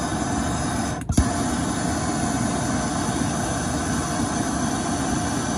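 Small MAPP-gas torch burning with a steady hissing rush, heating a seized oxygen sensor in the exhaust to free it. A brief sharp break in the sound about a second in.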